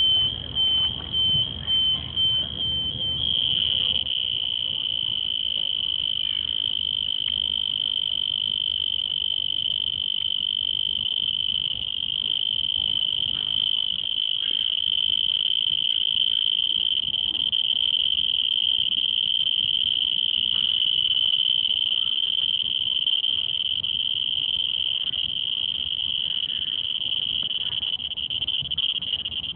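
Cricket singing on one high, steady pitch, in short pulses about two a second for the first three seconds, then as an unbroken trill.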